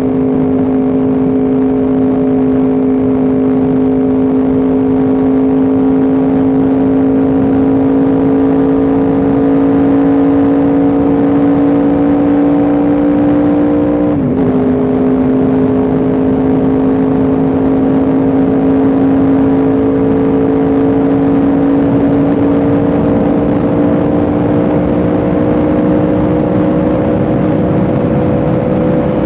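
Yamaha R1M's inline-four engine pulling steadily at cruise, its pitch slowly rising as the bike gains speed, with a brief dip in pitch about halfway through.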